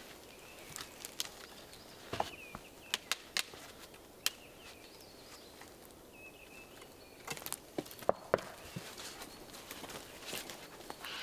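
Sparse sharp knocks and clicks of split wooden planks being leant against a tree trunk and set against one another, with footsteps on forest litter. A bird chirps faintly a few times.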